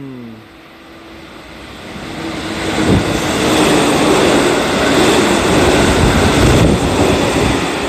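JR Central 313 series electric train passing through a station at speed without stopping. A held tone is heard as it approaches, then the noise of the wheels on the rails and the rushing air grows and is loud from about three seconds in as the cars go by.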